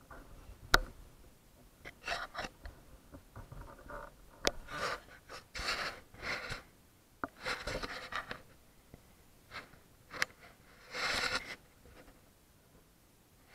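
Close handling noise: cloth rustling and scraping against the microphone in irregular bursts, with a few sharp clicks between them.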